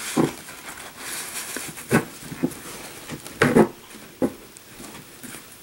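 Handling sounds of a photo print being slid into a clear plastic frame: paper rubbing on the plastic and a few light knocks, spaced irregularly.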